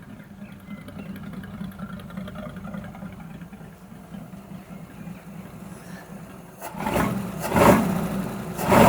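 1941 Ford pickup's flathead V8 idling cold on choke, then revved twice in quick blips over the last couple of seconds, a check on whether it runs cleaner now that the flooding carburettor is sorted.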